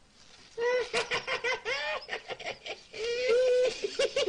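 High-pitched laughter in quick, choppy bursts, starting about half a second in.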